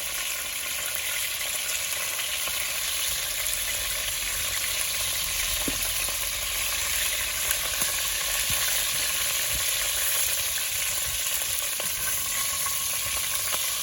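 Chicken pieces frying in hot oil in a pot: a steady sizzle with a few faint crackles.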